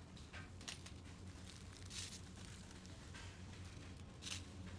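Faint handling noise as the metal drive shafts of an RC model kit are picked up and worked on by hand: a few light clicks and rustles over a low steady hum.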